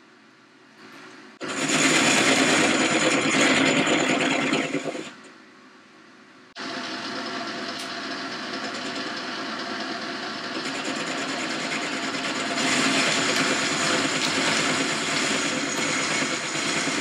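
Boxford metal lathe turning a metal bar, the cutting tool taking a cut with a harsh, steady machining noise. It starts sharply about a second and a half in, drops away around five seconds, comes back about a second later and grows a little louder in the second half.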